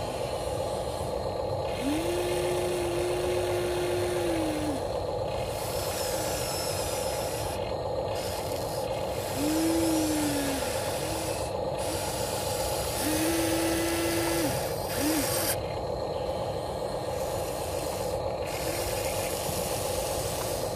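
Electric motors of a Huina 1593 RC excavator whining as its arm and bucket move, over a steady hum. The whine comes in several spells: it rises, holds level and drops each time, the longest about two and a half seconds.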